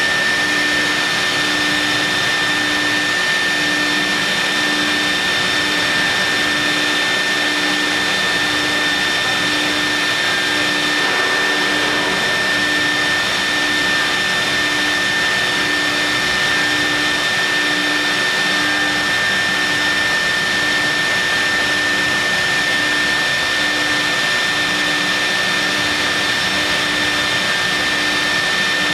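CNC milling machine with a vacuum table running while machining marble: a steady high whine over a loud, even hiss, with a low hum that pulses about once a second.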